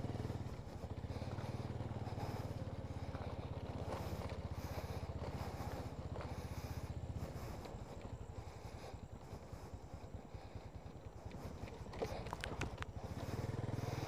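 Motorcycle engine running at idle, a steady low pulsing that eases off around the middle and comes back near the end. A few sharp clicks come about twelve seconds in.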